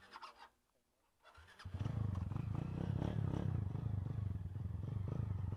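A few faint clicks, then about a second and a half in a Honda Titan 160's single-cylinder four-stroke engine comes in loud and runs steadily as the bike gets under way.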